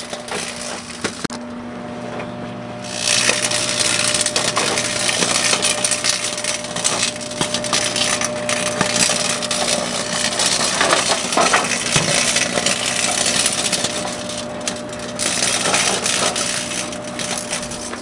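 Microwave oven running with a load of metal cans inside: a steady electrical hum under loud, continuous crackling and snapping of electrical arcing between the cans. The arcing starts about three seconds in and breaks off briefly near the end.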